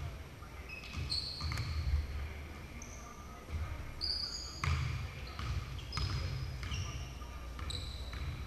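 Basketball bouncing on a hardwood gym floor amid repeated short, high sneaker squeaks and thuds of running feet, ringing in a large hall.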